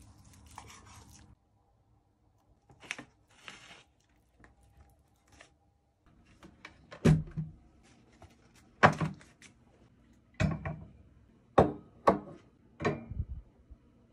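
Dull knocks and thuds on a wooden desktop as a food platter and its small dishes are set down and arranged: two soft rustling bursts early, then a run of about seven sharp knocks in the second half.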